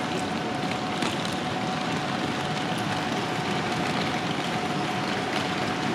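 Railway station platform ambience: a steady mechanical hum with a constant whine running through it, and a few light clicks.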